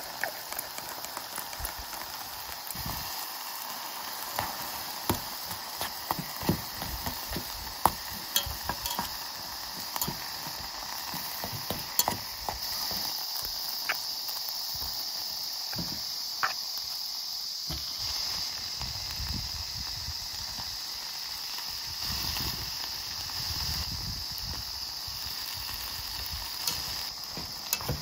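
Scattered clicks and taps of food and chopsticks in a small aluminium pot as natto and a block of Spam go in and are broken up, over a steady high hiss of summer insects.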